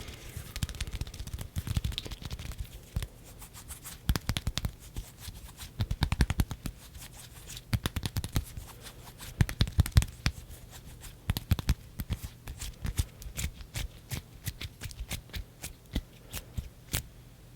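Hands close to the microphone making ASMR hand sounds: a rapid, irregular run of sharp clicks, pats and rustles, coming in clusters.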